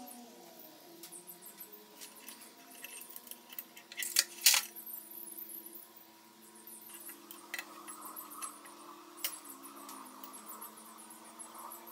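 Metal clicks and clinks of valve springs, retainers and keepers coming off a Deere six-cylinder cylinder head under a C-clamp valve spring compressor, with two sharp clinks about four seconds in. A faint steady hum runs underneath.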